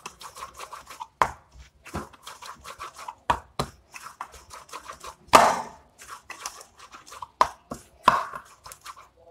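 Hand-kneading a semi-soft flour dough in a bowl: irregular soft knocks and slaps as the dough is pressed and turned against the bowl, with a louder knock about five seconds in.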